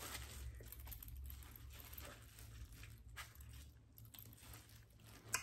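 Faint crinkling and rustling of a mesh nut bag as it is twisted and squeezed to wring juice out of blended fruit pulp, with one short click near the end.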